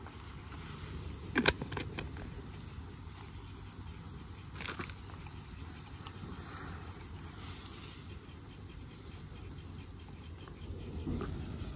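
Small wood cooking fire burning under a steel wok of boiling noodles: a steady low hiss with a few sharp crackling clicks, the loudest about one and a half seconds in.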